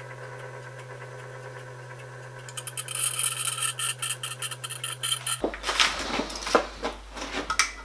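Milling machine running with an end mill on a gunmetal casting: a steady hum, joined by a fast rattle of sharp ticks from about two and a half seconds in. The machine stops about five seconds in, and sharp metallic clicks and clatter follow as a caliper is handled on the steel machine table.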